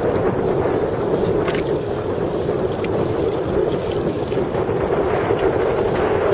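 Steady rush of water along a sailing dinghy's hull, with a few faint ticks.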